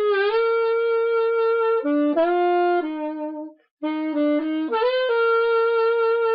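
Saxophone playing two short phrases of a slow melody, each climbing through a few quick notes into a long held note, with a brief pause for breath about three and a half seconds in. The quick notes are flicked grace notes leading up into G and A.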